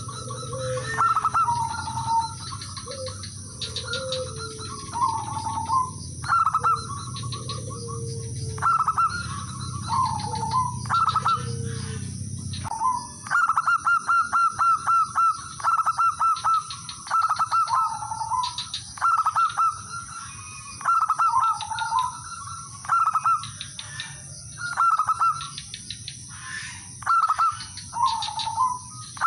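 Male zebra dove cooing: repeated phrases of quick staccato notes, each ending in a lower rolling coo, about one phrase every two seconds, with a longer unbroken run of quick notes just before the middle.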